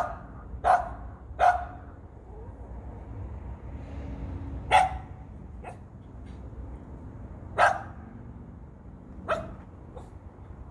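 A dog barking in single, spaced-out barks, about six over ten seconds with pauses of one to three seconds between them.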